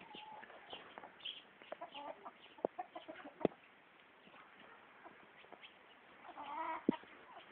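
Chickens clucking at feeding time in short, scattered calls, a cluster loudest near the end, with a few sharp clicks in between.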